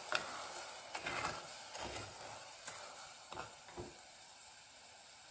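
Sugar syrup sizzling in a pan while it is heated to dissolve the sugar for caramel, with a spatula stirring and scraping through half-melted lumps of sugar a few times. The scraping thins out toward the end.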